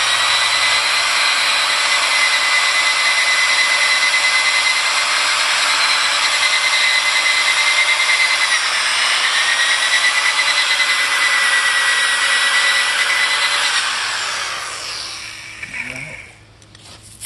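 Power drill spinning an abrasive brush disc against wet glass pool tile, scrubbing off calcium deposits: a steady motor whine over a scrubbing hiss, dipping slightly in pitch partway through. It fades out near the end.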